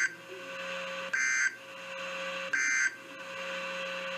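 NOAA Weather Radio SAME end-of-message data code: short buzzy digital bursts about every 1.4 s, two full ones after the tail of a first at the start, marking the end of the warning message. Between the bursts, radio hiss with a faint steady hum.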